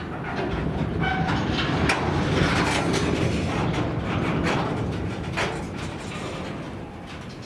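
Freight wagon wheelsets rolling slowly on the rail with the train braking: a dense metallic grinding from the wheels and brakes, a brief squeal about a second in, and several sharp knocks. The sound swells in the middle and eases toward the end.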